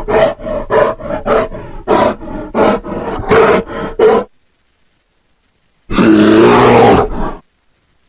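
Cartoon bear sound effect: a quick run of about ten short grunts, then, after a pause, one long loud roar.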